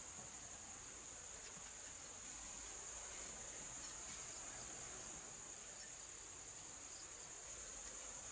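Crickets chirring in a steady, high, even drone, with a few faint ticks from about a second and a half in.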